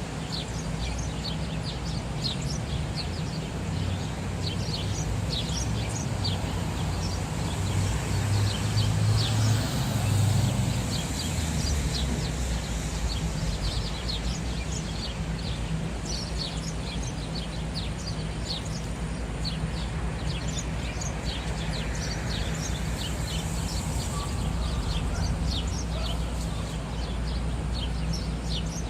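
Sparrows chirping in quick, overlapping short chirps, over a steady low rumble of city traffic that swells for a few seconds about a third of the way in.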